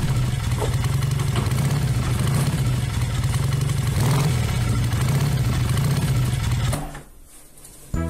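A steady low motorcycle-engine rumble, running and slightly revving, that cuts off suddenly about seven seconds in.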